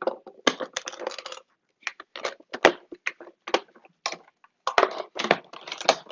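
Irregular run of sharp plastic clicks and knocks from a food processor's bowl, lid and pusher being handled and set in place.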